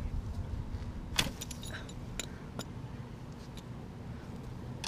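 A few sharp metallic clicks and clinks of a wrench working a stuck oil drain plug on a Honda Superhawk motorcycle engine, the loudest about a second in, over a low steady rumble.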